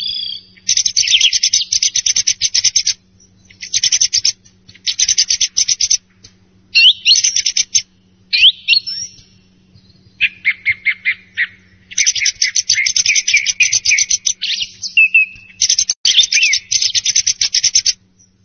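Song thrush singing: about eight loud phrases of rapid, sharp notes mixed with short whistled slurs, each phrase one to three seconds long, with brief pauses between.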